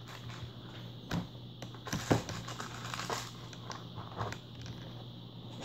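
Rustling and scattered light clicks of small plastic vintage Star Wars action-figure weapons being rummaged and handled, with a few louder clicks, the loudest about two seconds in.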